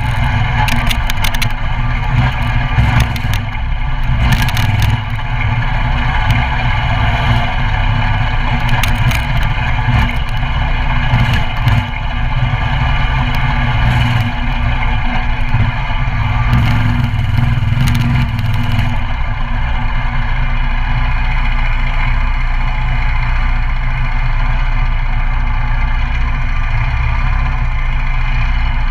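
Coleman CT200U mini bike's 196cc single-cylinder engine running steadily under way, with scattered rattling knocks that die away about two-thirds through.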